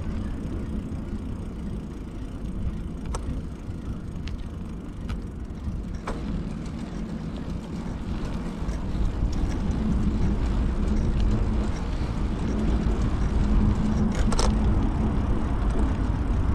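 Riding noise on a moving bicycle: a steady rumble of wind and tyres on the path. A low hum grows louder in the second half, and a few sharp clicks come through.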